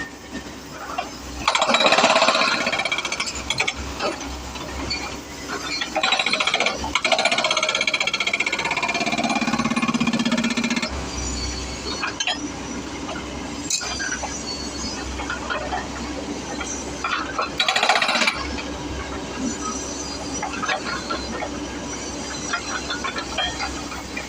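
Excavator-mounted hydraulic breaker hammering in bursts: three loud spells of rapid pounding, the longest about five seconds. Between them the excavator's diesel engine keeps running.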